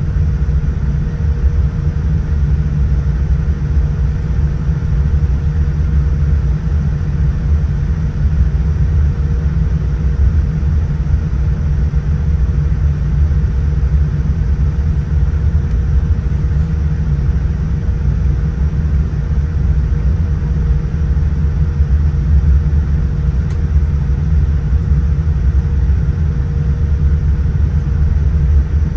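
Steady cabin noise inside a Boeing 787-9 taxiing: a deep rumble from the engines at idle and the wheels rolling on the taxiway, with a thin steady hum above it.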